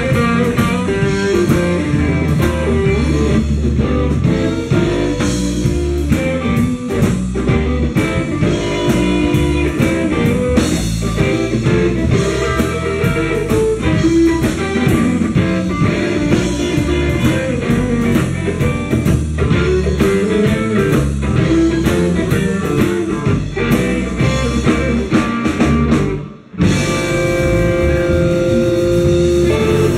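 Live blues band playing, led by guitar over bass and drum kit. About 26 seconds in the sound drops out for a moment, then the band resumes with held notes.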